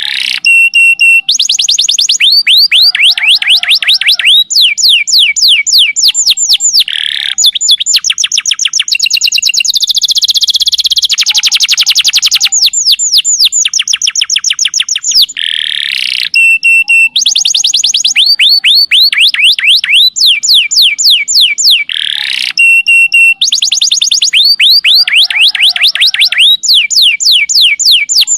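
Domestic canary singing long, rapid trills: runs of high, quickly falling notes at about ten a second, one phrase after another with hardly a break.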